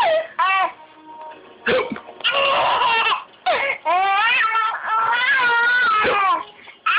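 A baby's loud, high-pitched vocal squeals in several bursts, with short ones near the start and a long one through the middle that wavers up and down in pitch.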